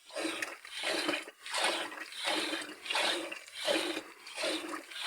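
Rhythmic watery splashes, about three every two seconds.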